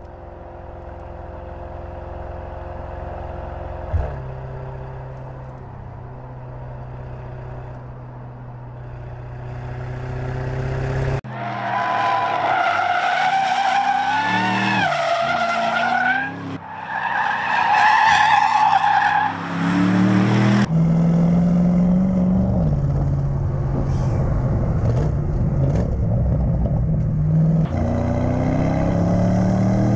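Twin-turbocharged V8 sports sedan engines running and accelerating, the pitch stepping with gear changes. For several seconds in the middle, a loud, high, wavering tyre squeal takes over, then the engine comes back.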